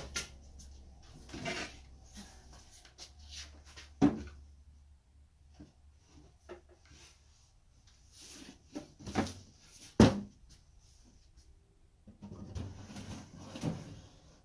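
Wooden drawers of an old chest of drawers being slid into their openings, scraping and knocking. Two sharp wooden knocks, about 4 and 10 seconds in, are the loudest, with a stretch of rough scraping near the end.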